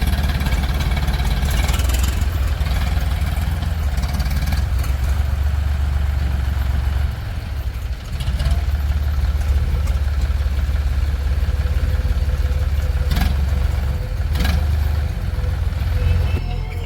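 Heavy diesel engine running steadily, dipping briefly about seven seconds in, with two sharp knocks a second and a half apart near the end.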